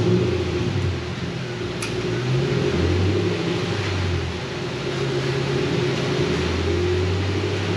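A Ford Mustang's engine running steadily in the shop, its low hum shifting slightly up and down in pitch. A light metal click about two seconds in.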